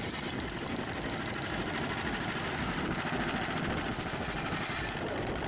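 Engine-driven firewood saw running steadily.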